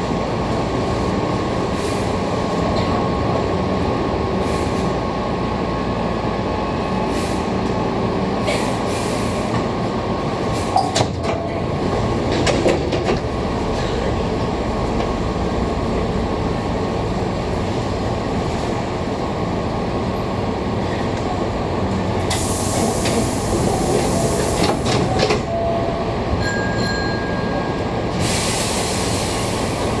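Hankyu 6000 series electric train running, heard from inside the cab: a steady rumble of wheels and motors, with scattered clacks over rail joints. In the second half there are two long, loud rushes of noise, the second as a train on the next track comes alongside, and a thin wheel squeal between them.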